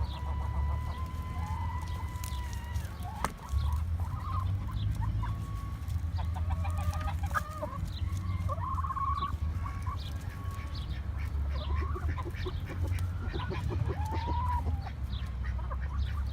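Chickens clucking and calling, many short calls one after another, over a steady low rumble.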